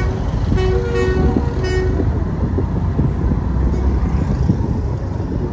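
A vehicle horn toots three short times in the first two seconds, over the steady low rumble of a motorcycle ride through city traffic.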